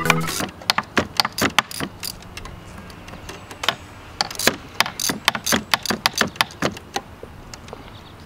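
Hand ratchet with a wobble extension and 5 mm Allen bit clicking in irregular runs, with small metallic clinks, as the screws holding a stock turbo diverter valve are backed out. The clicking stops about a second before the end.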